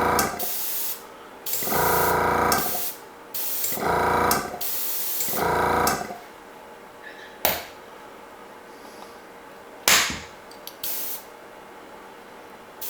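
Compressed air hissing out of an airbrush compressor setup in four short bursts about every one and a half seconds, bleeding the pressure down toward 20 PSI. Two sharp clicks follow in the quieter second half.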